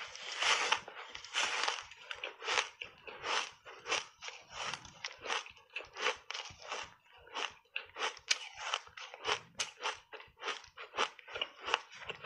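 Refrozen block ice coated in matcha powder being bitten and chewed, a fast run of crisp, sharp crunches, about two to three a second.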